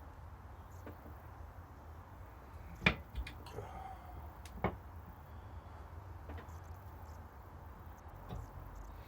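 Thread-cutting die, turned with a G-clamp, working onto the end of a steel truss rod: a few sharp metal clicks and knocks as it is turned, the loudest about three seconds in and another about a second and a half later, with a brief squeak between them, over a low steady hum.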